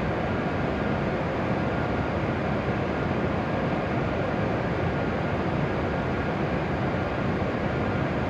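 Steady mechanical hum and whir from a W7 series shinkansen standing stopped at the platform, together with the station's own ventilation, with a faint high tone running through it.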